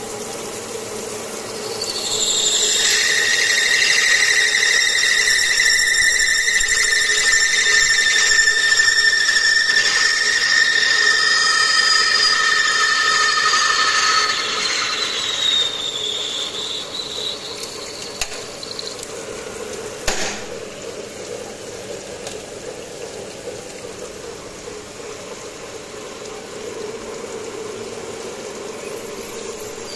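Traub automatic lathe cutting SS 304 stainless steel: the cutting tool squeals, a loud, steady high screech of several tones at once starting about two seconds in, then fading about halfway through with its pitch falling. The machine's steady running hum continues beneath, with a sharp click about two-thirds of the way through and a brief high tone near the end.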